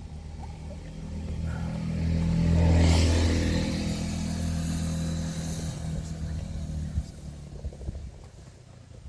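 A motor vehicle driving past: its engine hum swells to its loudest about three seconds in and then fades away. A single sharp knock comes about seven seconds in.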